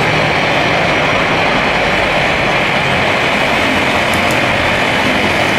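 Airbus A320-214's CFM56 jet engines heard loud and steady, a continuous even rush of jet noise from the airliner after landing.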